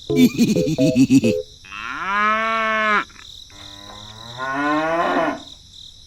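A cow mooing: a short wavering call at the start, then two long moos. The first long moo is held steady for about a second, and the second rises in pitch.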